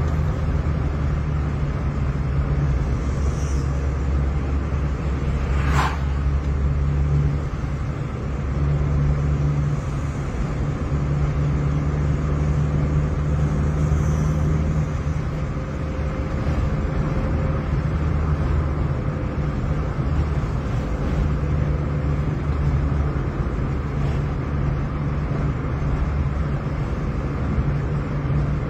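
Car engine and road noise heard from inside the cabin while driving at a steady speed, a low rumble that swells and eases slightly, with one brief click about six seconds in.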